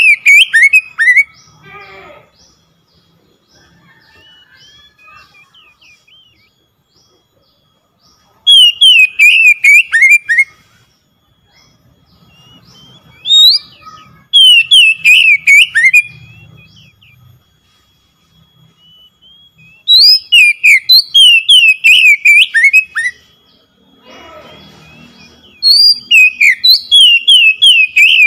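Oriental magpie-robin (kacer) singing loud phrases of rapid, falling whistled notes, each two to three seconds long, with pauses of several seconds between them; five phrases in all.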